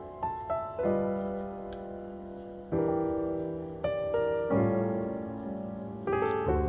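Background solo piano music: chords and single notes struck every second or so, each ringing and fading before the next.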